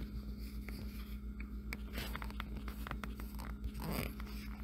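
Faint scattered clicks and light scraping of a steel bracket and M8 screws being handled and threaded by hand, over a steady low hum.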